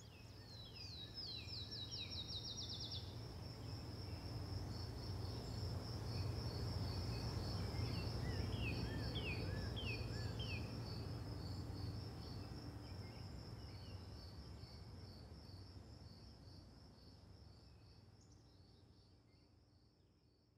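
Outdoor nature ambience: a cricket chirping in a steady, fast-pulsing high trill, with short bird chirps in the first few seconds and again around the middle, over a low background rumble. It swells and then fades out to silence.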